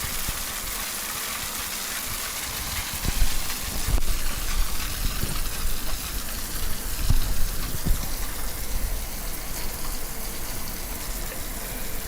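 Shower running full on through a rain shower head, water pouring down in a steady hiss and splashing below, with low thuds and gusts in the splashing from about three seconds in.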